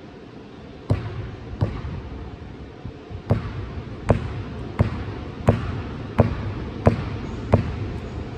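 A basketball being dribbled on a gym floor, with sharp echoing bounces that start about a second in and then keep a steady beat of roughly one bounce every 0.7 s.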